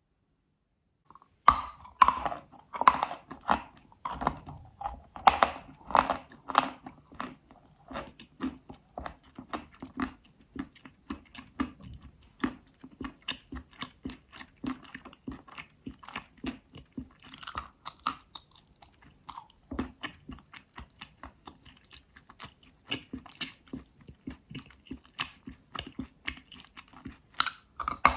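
Close-up crunching of Astana chalk being bitten and chewed. Several loud, crisp bites come in the first few seconds, followed by steady, rapid chewing crunches, with another sharp bite about two-thirds of the way through.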